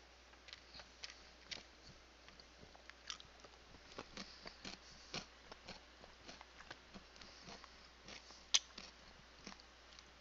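A person chewing a mouthful of spicy chicken with jalapeño and pineapple: irregular soft crunches and wet mouth clicks, with one sharper click near the end.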